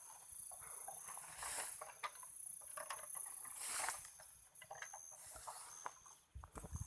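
Leaves and grass rustling and twigs crackling as someone pushes through thick undergrowth, with two louder swishes about a second and a half in and near the middle, and a few low thuds near the end. A faint, steady high trill of night insects comes and goes behind it.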